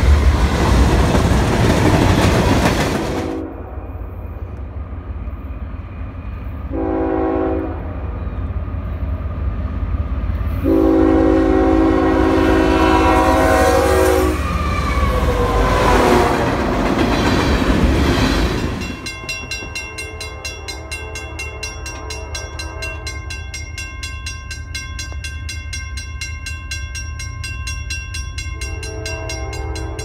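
A diesel freight train passes close by: loud locomotive rumble at first, then the lower rumble of freight cars rolling past. The train horn sounds a short chord about seven seconds in and a long one from about eleven to fourteen seconds, followed by pitches sliding down. About nineteen seconds in the sound changes abruptly to a fainter, steady set of tones with a fast, regular pulse.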